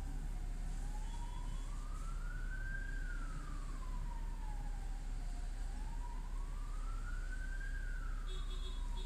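A siren wailing slowly, its pitch rising and falling about every five seconds, over a steady low rumble of street traffic.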